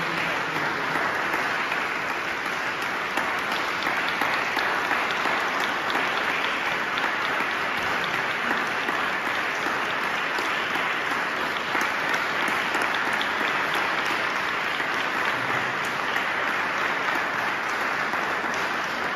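Audience applauding, a steady dense patter of many hands clapping that keeps on without letting up.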